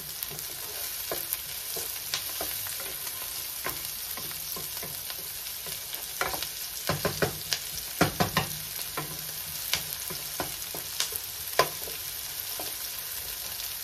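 Diced onions and garlic sizzling in a nonstick frying pan, stirred with a wooden spatula that scrapes and taps on the pan, with a few louder knocks about halfway through.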